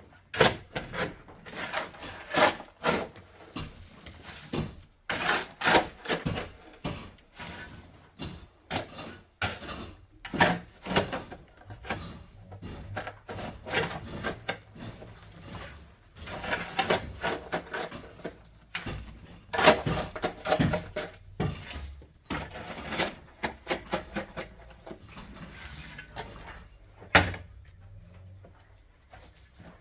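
Irregular knocks, clatter and scraping of hard objects being handled and set down, a few sharp hits every second or so with short pauses between.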